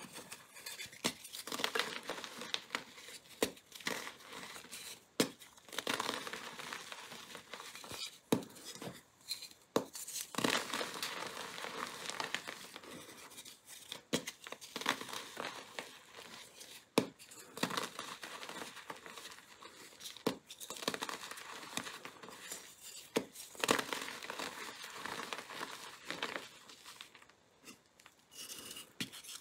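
Gym chalk being crushed by hand: blocks and loose lumps of powdered chalk squeezed and broken between the fingers, giving an irregular dry crunching with many small crackles and sharp snaps.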